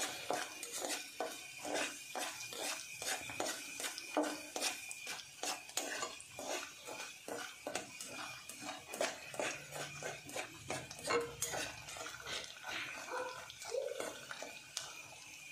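A metal spoon scraping and stirring round an aluminium saucepan, about three strokes a second, thinning out near the end, over the faint sizzle of chopped nux vomica (kuchla) seeds frying in ghee.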